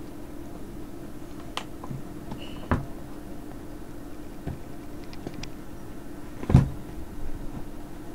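A few short knocks and clicks from handling a Halloween severed-head prop, the loudest about six and a half seconds in, over a steady low hum.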